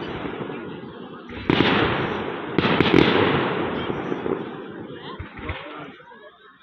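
Fireworks going off: two sharp bangs about a second and a half and two and a half seconds in, each followed by a noisy crackling tail that fades away over a few seconds.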